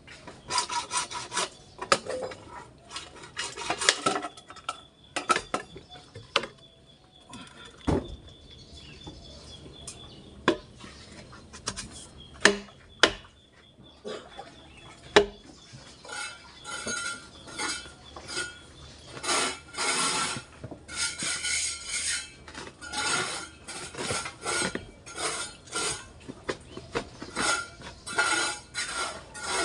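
Scattered knocks and clicks of PVC pipe being handled, then from about halfway a run of rhythmic rasping strokes, about one to two a second, as the pipe is worked on.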